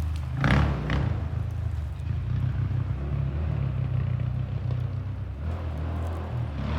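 Honda TRX400EX ATV's air-cooled single-cylinder four-stroke engine idling with a steady low chug, with a brief louder burst about half a second in.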